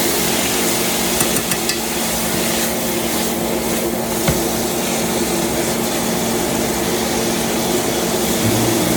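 Stovetop cooking noise: a steady hum from a fan with an even hiss, of the kind made by a range hood over a wok stir-fry, with a few light clicks about a second and a half in and again after four seconds.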